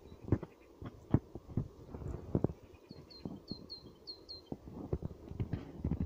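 Irregular soft thumps and crackles of footsteps on dry grass and brush, with a small bird giving a quick run of about six short high chirps midway.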